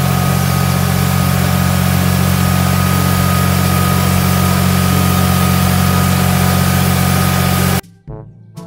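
Massey Ferguson tractor's diesel engine running steadily as the tractor drives slowly, with a steady hiss over the engine note. It cuts off abruptly near the end.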